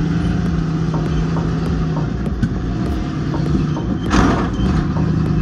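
Ford Bronco rock crawler's engine running steadily as the truck creeps over boulders. A brief rush of noise comes about four seconds in.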